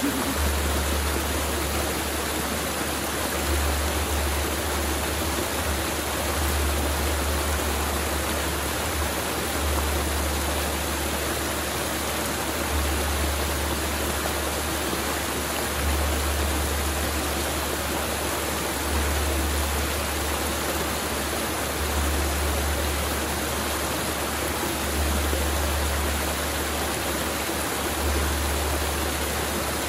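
Mountain river flowing steadily, with a low rumble underneath that swells and fades every few seconds.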